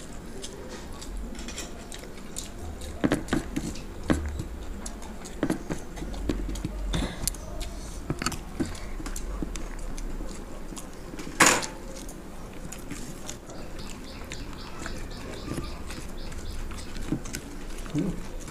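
Two people eating egg chow mein fast: noodles slurped and chewed, with scattered small clicks of forks and fingers on plates and one louder sharp knock about eleven seconds in.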